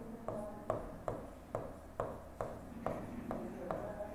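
Stylus tapping and writing on the glass of an interactive display panel: a string of short, sharp taps with a brief ring, about two or three a second.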